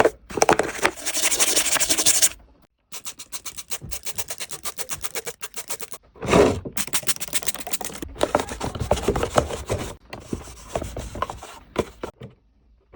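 Rapid scrubbing and rubbing strokes on a dirty toy during cleaning. The strokes come in several stretches, broken by abrupt cuts.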